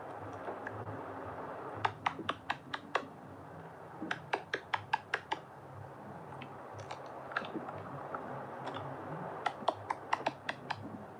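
Crisp clicks and snaps from soap being handled, in three quick runs of about five to seven each, over a faint steady hiss.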